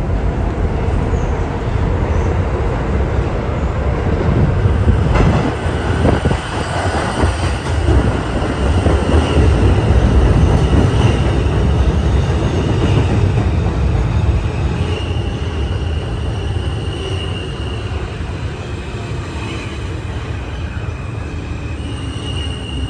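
New York City subway train running, a loud, deep rumble of wheels on rail with high squealing tones that come and go from about nine seconds in.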